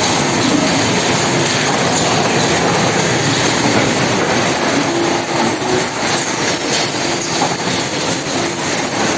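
Automatic packaging-line machinery running: a loud, steady mechanical clatter with fine rapid clicks, more noticeable in the second half.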